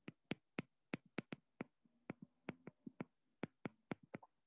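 A stylus tapping and clicking on a tablet screen while handwriting. It makes a quick, irregular series of light clicks, about four or five a second.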